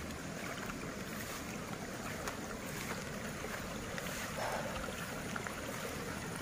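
Steady, even hiss of wind on the microphone, with a brief faint sound about four seconds in.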